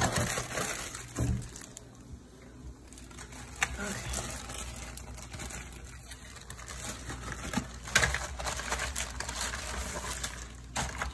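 Plastic packaging crinkling and rustling, with light clicks and knocks of plastic parts being handled. The sharpest rustles come right at the start and again about eight seconds in.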